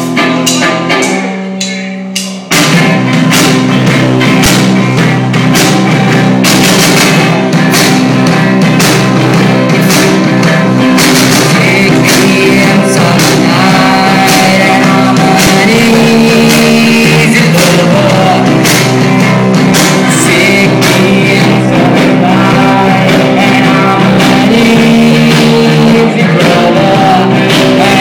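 Rock music with singing over guitar and drums: a quieter opening of held notes, then the full band comes in loudly about two and a half seconds in.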